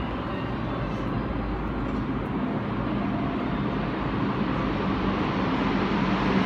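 A CAF rubber-tyred metro train approaching through the tunnel, its rumble growing steadily louder as it nears the station.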